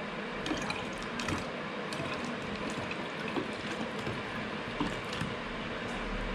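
Soap nut water poured in a thin stream from a plastic bottle into a plastic jug of bioenzyme: a steady trickle of liquid into liquid, with a few small faint clicks.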